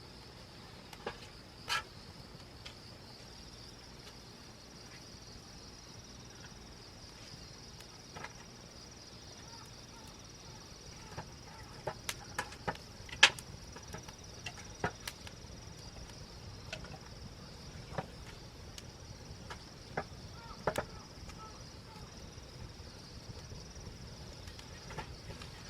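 Campfire wood crackling, with scattered sharp pops, the loudest about 13 seconds in, over a steady high-pitched chorus of insects.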